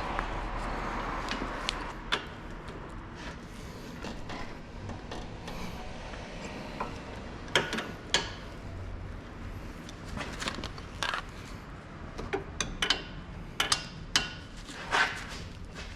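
Scattered sharp metallic clicks and clinks of hand tools and brake parts being handled during brake disassembly, coming more often in the last few seconds, after a short stretch of rushing noise in the first two seconds.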